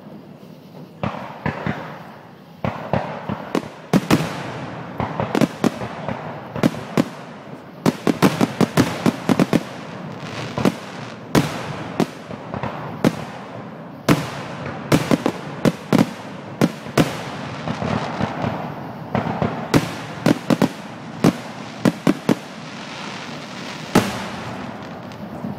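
Aerial fireworks display: many sharp shell bursts in quick succession, densest through the middle and fewer toward the end.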